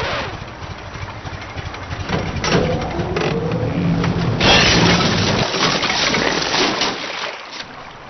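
Pickup truck engine running as the truck pulls up, with a short rise in pitch about three seconds in. A long, loud rush of noise sets in about halfway through.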